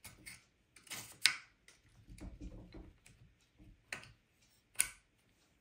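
Small sharp clicks and taps of a metal hinge pin with a polyimide washer being slid through an RC car's billet A-arm and pivot block, with faint handling rustle between them; the sharpest click comes about a second in.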